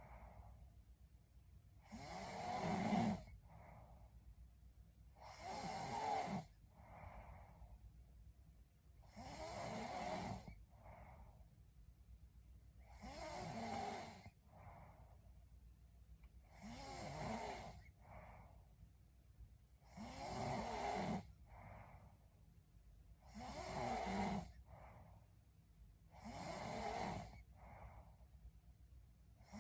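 A sleeping woman snoring steadily, about one snore every three and a half seconds, each followed by a shorter, softer second sound.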